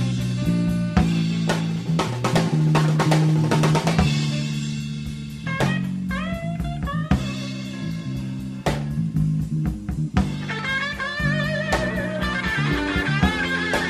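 Live electric blues band playing an instrumental stretch: drum kit, electric bass line and electric guitar. A lead line bends upward in rising notes around the middle and holds a wavering note over the last few seconds.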